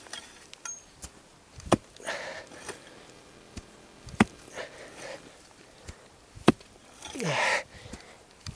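A digging tool striking the ground three times, about two and a half seconds apart, with a man breathing hard between strikes and a short grunt falling in pitch near the end.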